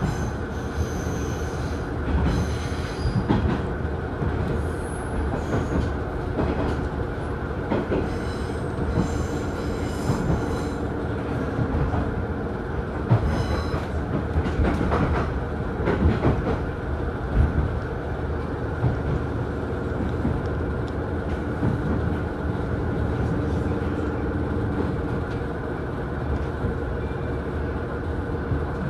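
KiHa 110 diesel railcar running, heard from inside the car: steady engine and rolling noise with wheel clatter. Short high-pitched squeals come and go during the first half.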